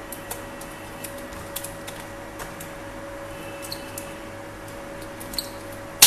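Faint, scattered light clicks and ticks of fingers handling a DDR3 SO-DIMM laptop RAM module at its memory slot, over a steady background hum.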